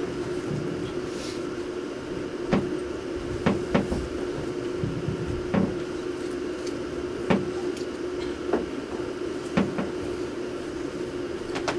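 Scattered knocks and clunks from props and furniture being moved during a stage scene change, about nine at irregular intervals, over a steady hum.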